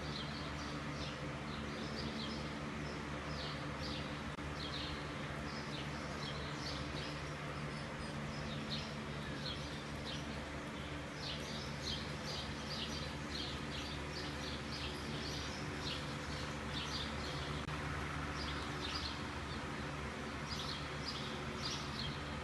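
Small birds chirping, with short high chirps coming irregularly throughout, over a steady low hum.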